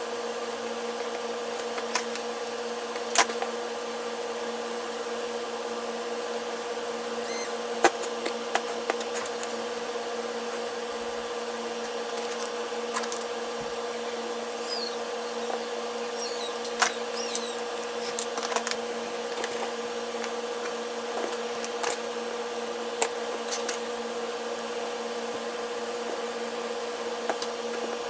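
A steady machine hum over a hiss, with scattered light clicks and taps.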